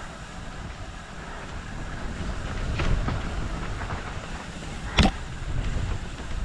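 Mountain bike descending a dirt trail: rushing wind on the helmet camera's microphone with the rumble and rattle of the bike over rough ground, growing louder as speed builds. A few light clicks come about three seconds in, then one sharp knock about five seconds in as the bike hits something on the trail.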